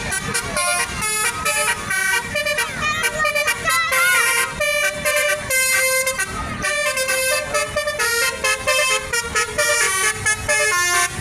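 Basuri 'telolet' bus air horn with twelve roof-mounted trumpets playing a fast melodic tune, the notes changing several times a second.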